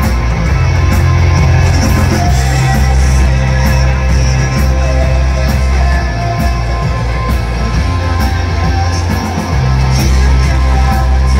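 Live rock band playing loud through a venue PA: bass guitar, electric guitar and drums with a man singing. The sound is bass-heavy, with steady drum and cymbal hits.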